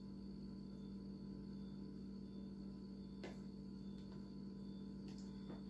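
Low steady hum with a single faint tap about three seconds in.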